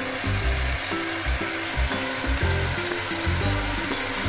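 Wet spice paste frying in hot oil in a karai, bubbling with a steady sizzle.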